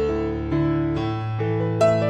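Background music: soft electric piano playing a slow, gentle melody, notes struck a few times a second over held bass notes.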